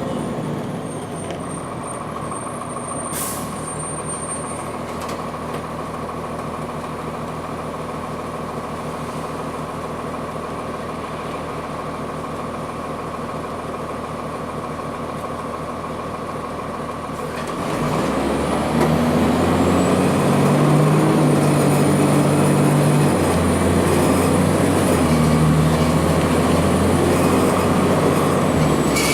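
Cummins ISC diesel engine of a 2002 Blue Bird CS transit bus running steadily at low revs, then getting louder about two-thirds of the way in as the bus pulls away under power. A few seconds later the engine note steps down as the Allison automatic shifts up. A single sharp click comes early on.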